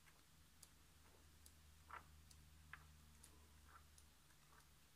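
Near silence: faint rustles of paper sheets being turned in a pad of collage paper, with small ticks about once a second.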